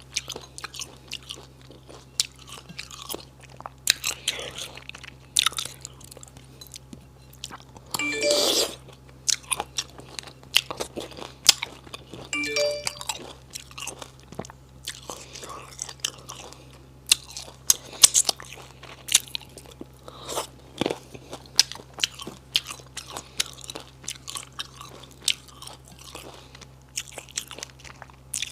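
Close-miked chewing and biting of spicy silkworm pupae, with irregular crunches throughout.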